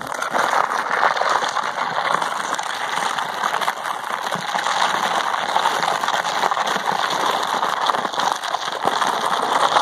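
Heavily loaded plastic trash can being dragged and walked across rough asphalt, its bottom rim scraping and grinding in a continuous gritty crackle that starts abruptly at the outset.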